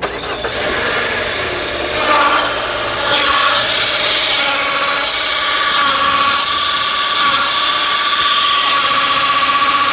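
Peugeot 308 engine running with a loud, harsh grinding and rubbing noise from the clutch, with a steady high whine over it from about two seconds in. It is a very ugly noise even without the clutch pedal pressed, which the mechanic puts down to the release bearing, usually the first part of this Peugeot/Citroën clutch to fail.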